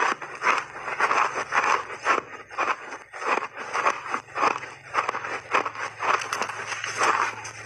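Close-up crunching of refrozen mixed-berry ice chunks being bitten and chewed: a quick, irregular run of sharp cracks, several a second.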